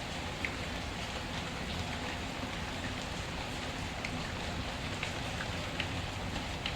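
Steady rain falling, with scattered sharp pops from a crackling wood fire.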